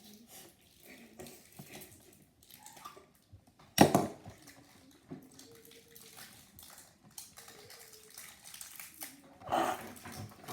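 Candy packaging being handled and opened: soft rustling and small clicks, with one sharp snap or rip about four seconds in.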